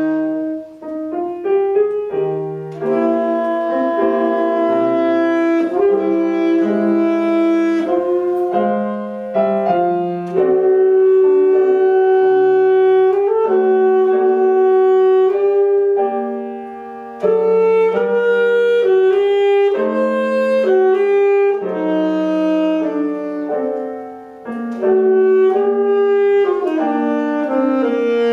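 Alto saxophone and grand piano playing a classical chamber piece together: the saxophone holds long sustained notes over the piano's accompanying chords, with one especially long held note in the middle.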